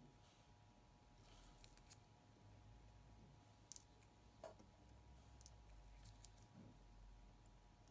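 Near silence with a faint low hum and a few scattered faint clicks of small metal watchmaker's tools and parts being handled during a wristwatch teardown.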